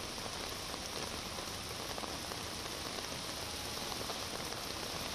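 Steady rain falling on a wet street, an even hiss with no individual drops standing out.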